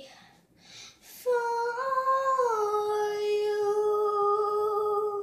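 A young girl singing unaccompanied, holding one long final note from about a second in: it rises a little, then drops and is held steady until it stops.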